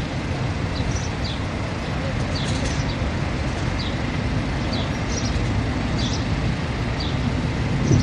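Steady low outdoor rumble of vehicle and traffic noise, with small birds chirping briefly a dozen or so times at irregular moments.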